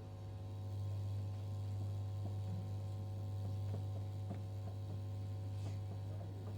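Steady electrical mains hum, a low buzz with a stack of higher overtones, of the kind a public-address amplifier and speakers give off while idle, with a few faint ticks over it.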